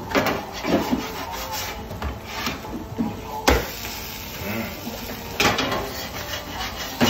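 Large metal spatulas scraping across a steel okonomiyaki griddle in irregular strokes, with a few sharp clanks of metal on metal, the loudest about halfway through and near the end.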